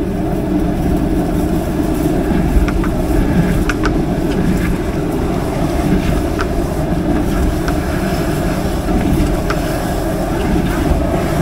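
High-pressure sewer jetter running with a steady drone while its hose is worked through fat deposits clogging the drain, with a few faint clicks over it.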